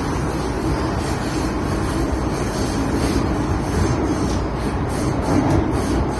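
Hong Kong MTR Tsuen Wan Line train running, heard from inside the carriage: a steady, continuous rumble of wheels and motors on the rails.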